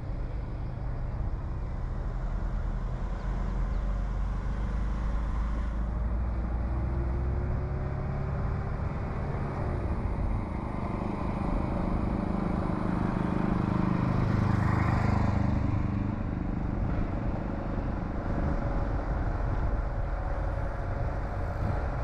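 Car engine running and tyre-and-road noise while driving. The engine note changes a few times, and the sound grows louder for a couple of seconds about two-thirds of the way through.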